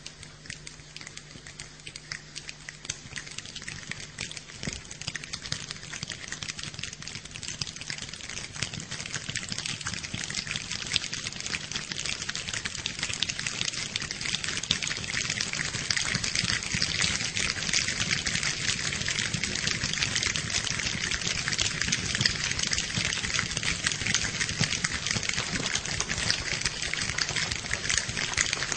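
A crowd of people imitating rain with their hands: a dense patter of finger snaps and claps that swells steadily from light dripping to a heavy downpour.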